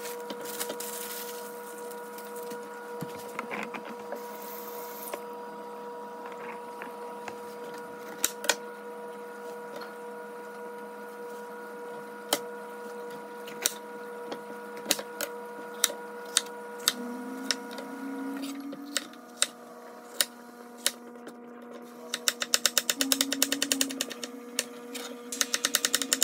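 Chef's knife cutting bell peppers on a plastic cutting board: scattered sharp knocks of the blade meeting the board, turning into a quick run of chops over the last few seconds. A steady hum sits underneath throughout.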